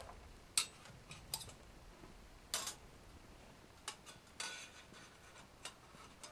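Scattered sharp clicks and short taps, about a second apart: a small wood fire crackling inside a folding steel camp stove, with light metallic taps as a hand works at the stove top.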